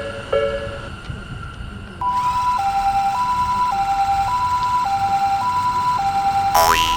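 Railway crossing bell clanging in a steady alternating rhythm, fading out in the first second or two. About two seconds in, a two-tone siren starts, alternating a high and a low note about every half second, in the pattern of a Japanese ambulance's 'pee-po' siren. Near the end there is a short rising sweep.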